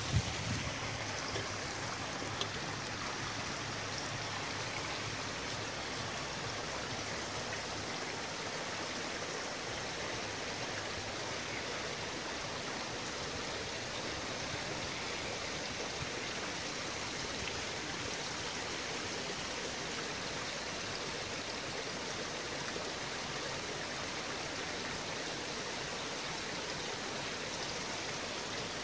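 Steady, even rushing noise like running water, unchanging throughout, with a brief knock right at the start.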